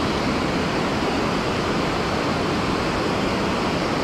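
Water pouring over a low-head dam and churning in the river below it: a steady, even rush.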